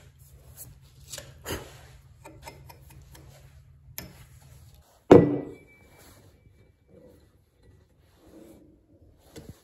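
Hand sanding strokes rubbing on a steel double-bit axe head held in a vise. About five seconds in comes a loud metallic clank that leaves a short ringing note, followed by a few quieter handling knocks.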